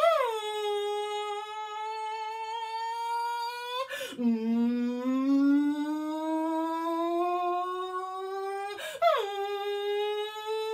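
A woman's voice imitating an ambulance siren: long hummed tones that slide slowly upward in pitch, with a quick break and drop about four seconds in, then a slow rise again, and another break near the end.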